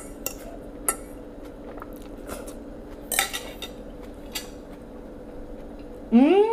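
Eating utensil clinking against a bowl a few times as salad is eaten from it. Near the end, a man's loud hum with his mouth full, its pitch rising and then falling.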